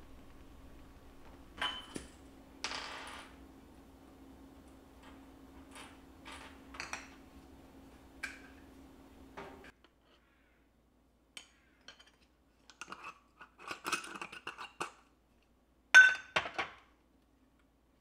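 Small metal clicks and clinks as a hinged mesh tea-infuser ball and a tea jar are handled, in clusters over the second half, with one sharp snap near the end as the infuser is opened. Before that, a steady low hum with a few light taps.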